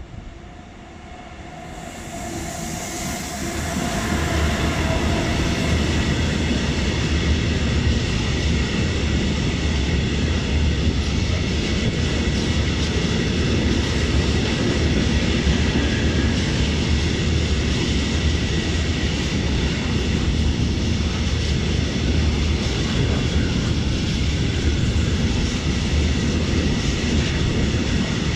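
Freight train of grain hopper wagons behind an electric locomotive approaching and rolling past, growing louder over the first few seconds. It then holds a steady loud rumble of wheels on rail as the wagons go by.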